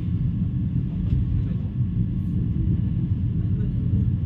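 Vande Bharat Express train running at speed: a steady, deep rumble of the moving train.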